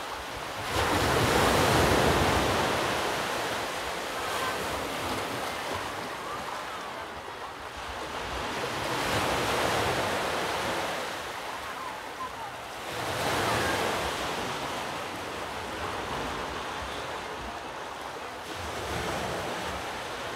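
Ocean waves breaking and washing up the shore, swelling about four times, with wind on the microphone.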